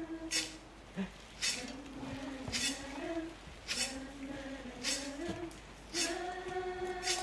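Several voices humming or singing long held notes that shift slowly in pitch, with a short sharp hiss like a "tss" or "shh" repeating about once a second as a beat.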